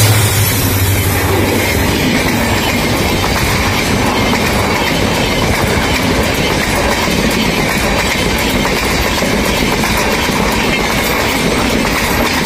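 Diesel-hauled express train passing at speed close by. The locomotive's engine hum is heard for the first second or so, then the coaches rush past with a steady clatter of wheels on the rails.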